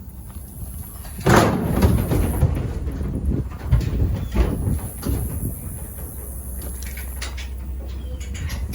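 Metal livestock trailer or chute rattling and banging as a cow is moved through it. There is a sudden loud clang about a second in, then a few seconds of irregular knocking and clattering, which settles into a steady low rumble.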